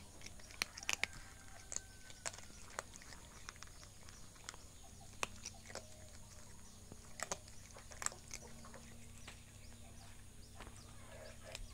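Cats crunching dry kibble, with sharp, irregular crunches as they chew.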